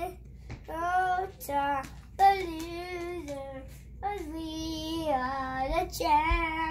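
A young boy singing solo, in phrases of long held notes that step up and down in pitch, with short breaks between phrases.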